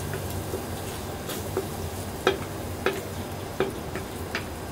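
Wooden spatula stirring tomato sauce and seasoning paste in a stainless steel wok, with a steady frying sizzle and repeated short clicks and scrapes of the spatula against the pan.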